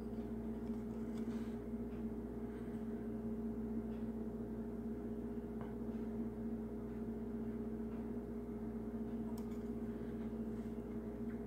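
Steady low hum with two held tones, under a few faint clicks of a small plastic model-kit part handled in the fingers.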